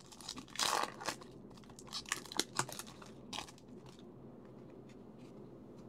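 Foil wrapper of a trading-card pack crinkling as it is torn open and the cards are pulled out, a run of short crackles that stops about three and a half seconds in.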